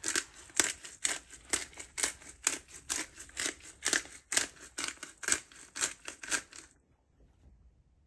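Hand pepper mill grinding pepper over a pan of pasta, ham and peas, with a rhythmic crunching of about two turns a second that stops near the end.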